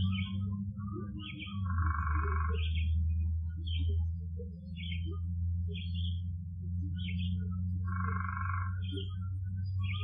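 Forest field recording of animal calls: short high chirps repeating about once a second, and twice a longer buzzy trill, over a steady low hum.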